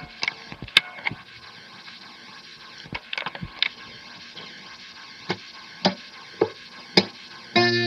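Steady hiss with a dozen or so irregular sharp clicks and a few soft knocks; guitar music comes in just before the end.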